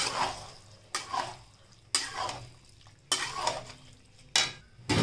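Metal spatula stirring and scraping pasta in a thick cream-and-cheese sauce around a metal kadhai, in five strokes about a second apart, each sliding down in pitch.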